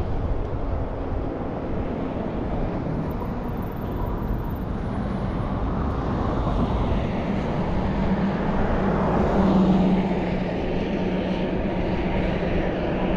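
Wind and road rumble on the microphone of a moving bicycle, with an engine hum from a passing vehicle swelling to its loudest about ten seconds in, then easing.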